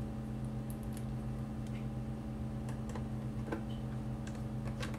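Scattered small clicks and ticks of a precision screwdriver working the small mounting screws of a laptop hard drive and its metal bracket, over a steady low hum.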